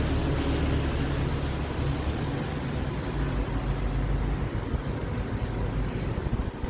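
Wind buffeting the microphone: a wavering low rumble over a steady hiss.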